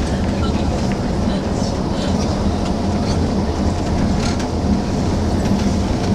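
Tour coach in motion, heard inside the cabin: a steady low engine and road drone with occasional light rattles.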